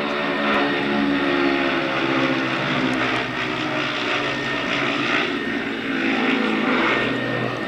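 Avro Shackleton's four Rolls-Royce Griffon piston engines, driving contra-rotating propellers, droning steadily as the aircraft flies past.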